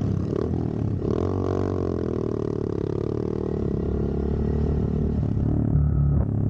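Motorcycle engine running as the bikes ride off, with a steady low note that shifts about five seconds in.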